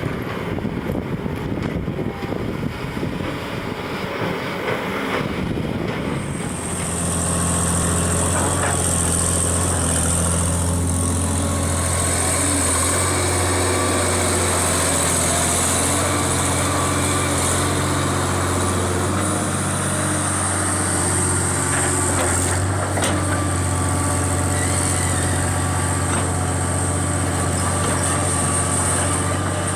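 Wind-like rumbling noise, then about six seconds in the diesel engine of a heavy construction machine comes in and runs steadily at a constant speed, with a deep hum and a thin high whine above it.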